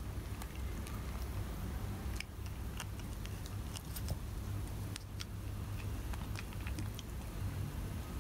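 Cats biting and gnawing a dry silver vine (matatabi) stick: scattered small crisp clicks and crunches, irregular, over a low steady hum.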